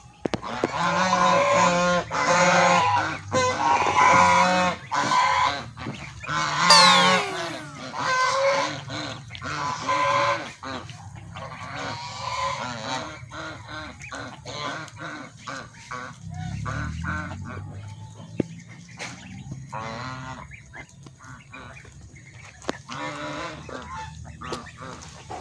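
White domestic geese honking repeatedly, loudest and most frequent in the first ten seconds or so. After that come fewer, quieter calls with scattered soft clicks.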